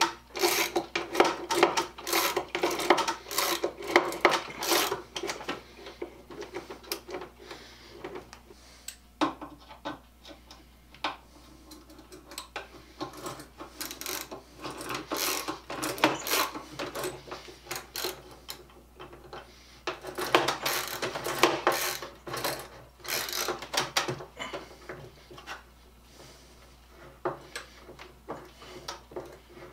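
A hand tool working into a wooden birdhouse's boards, with quick runs of clicking and rasping in three spells: the first few seconds, about halfway, and again about two-thirds through, with quieter scraping between.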